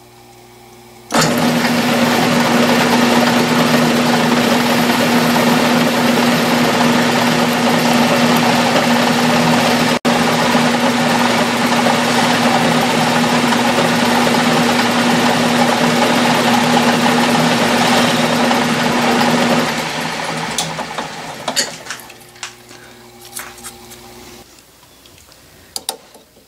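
Metal lathe switched on about a second in and running steadily with a hum while a boring bar takes a light finishing cut, about three thousandths, under power feed. It is switched off after about twenty seconds and winds down, followed by a few clicks.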